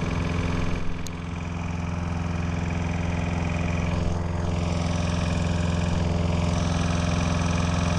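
Walk-behind gasoline lawn mower running steadily at a constant pitch while cutting grass.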